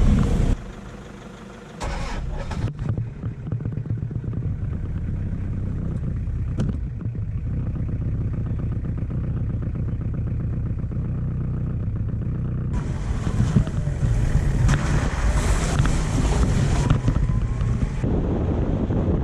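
An engine running steadily. From about 13 to 18 s a louder stretch of wind noise on the microphone rises over it.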